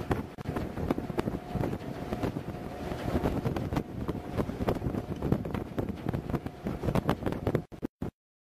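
Gusty wind buffeting the microphone on an open ferry deck, with a faint steady hum under it for the first few seconds. Near the end the sound cuts out abruptly into silence, broken by a couple of brief flickers.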